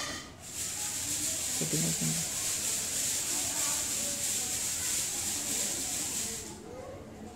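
A steady hiss, strongest in the high range, that starts about half a second in and stops about a second before the end, with faint voices behind it.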